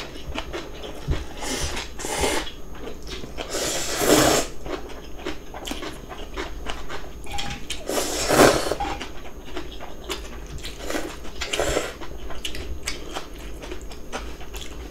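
Cold radish water-kimchi noodles and broth slurped in about five short, noisy bursts, the loudest about eight seconds in, with small clicks of utensils against bowls in between.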